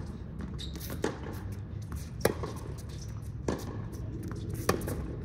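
Tennis rally: a tennis ball struck back and forth by racquets, four sharp hits about a second and a quarter apart, every other one louder.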